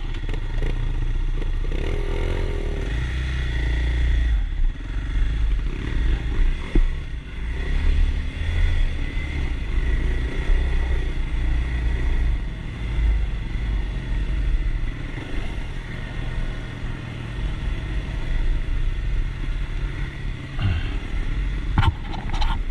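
Kawasaki KLX 300 dirt bike's single-cylinder four-stroke engine running under way, the revs rising and falling, with clatter and a couple of sharp knocks near the end.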